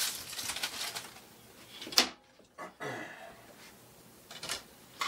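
Handling and rustling noise on a traditional bow, then one sharp snap about two seconds in as the bow quiver is popped off the bow, followed by a couple of light knocks as the quiver is put away.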